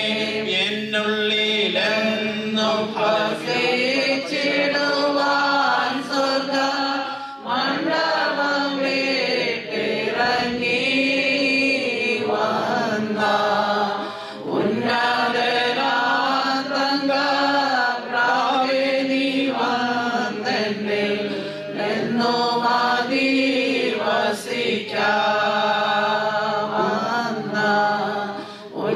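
Congregational singing of a slow Malayalam worship song, led by a man's voice on a microphone. It is sung in long held phrases with short breaks between them.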